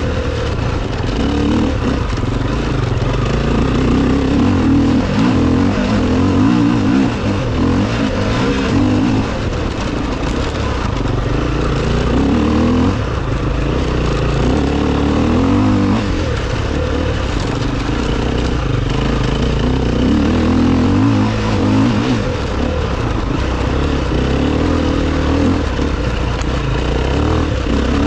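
Enduro motorcycle engine running under load as the bike is ridden, its note rising and falling every second or two with throttle and gear changes.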